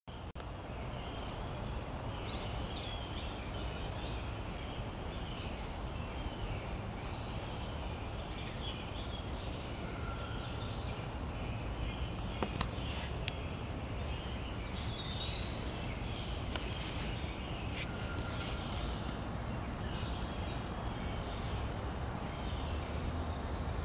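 Outdoor background: birds chirping now and then over steady low background noise, with a couple of sharp clicks about halfway through.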